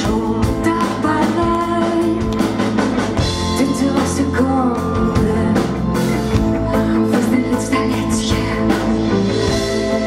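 Live rock band playing electric guitar, bass guitar, keyboards and drum kit, with a woman singing over it.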